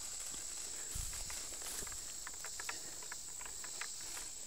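Footsteps and grass stems brushing as someone walks through tall weeds: scattered short rustles and clicks, with a low thump about a second in. Under it runs a steady, high insect trill.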